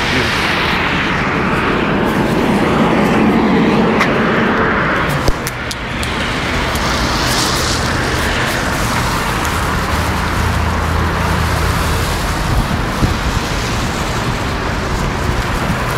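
Steady rush of road traffic, with cars passing on a wet street, picked up on a phone microphone. A single sharp knock about five seconds in.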